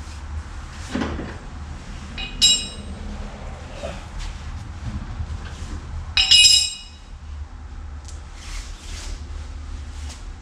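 Two sharp metallic clinks with a short ringing tail, about four seconds apart, the second louder, amid fainter knocks of tools and parts being handled over a steady low hum.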